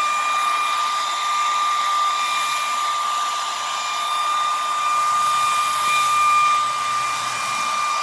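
A handheld hot-air blower runs steadily: a high, even motor whine over the rush of air. It is warming a plastic lip spoiler so that it softens and bends.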